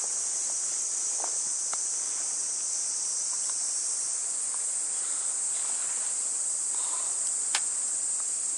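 Steady, high-pitched chorus of insects, with a few faint ticks and one sharp click near the end.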